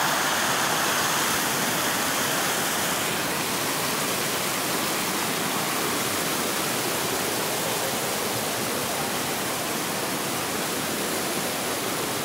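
Overflow water from an old reservoir dam rushing and foaming over rocks in a shallow channel, a steady rushing noise: the reservoir is spilling over.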